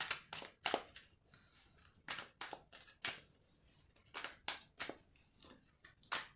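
Tarot cards being handled and shuffled: a string of short, crisp card snaps and slides, a few a second, with brief pauses.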